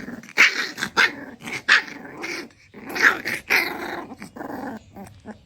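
A puppy growling and barking in a string of short bursts that weaken toward the end.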